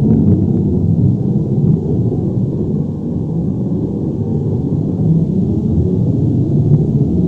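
Earthquake or avalanche rumble sound effect: a loud, deep, continuous rumble with a slight easing about two to three seconds in, and faint crackles of debris above it.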